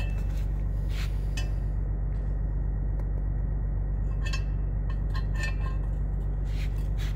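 Stainless steel exhaust V-band flanges clinking and scraping against each other as they are handled, a scatter of light metallic clinks with several close together past the middle. A steady low hum runs underneath.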